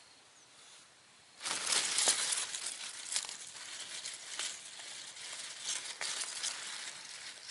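Rustling and crinkling noise that starts about one and a half seconds in and goes on unevenly, with scattered sharp crackles.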